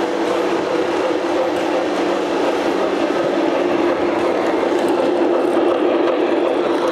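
Lionel O gauge New York Central Niagara model steam locomotive and its passenger cars running past on three-rail track: a steady whirring rumble of motor and wheels with a steady hum.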